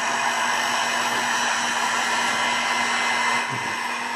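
Handheld hot air gun blowing steadily over a tablet's touch screen to soften the glue holding the glass: a constant rush of air over a steady low motor hum.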